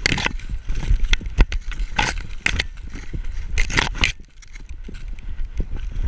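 Dry corn leaves and stalks crackling and scraping against a camera strapped to a running dog's back. It comes in several loud bursts, the longest a bit past halfway, with low thumps from the dog's gait underneath. The scraping eases off near the end as the dog breaks into the open.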